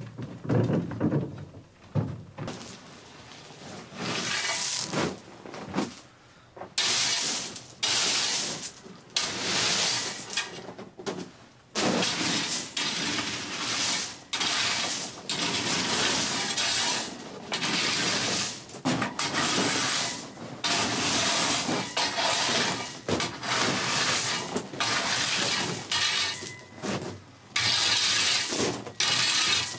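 A rake dragged back and forth through loose gravel: a rattling scrape of stones with each pull, stroke after stroke, roughly one every second or two.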